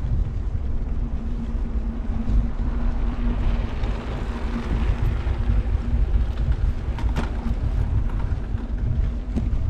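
Steady low rumble of wheels rolling over brick paving and wind on the microphone, with a steady low hum and a couple of faint knocks late on.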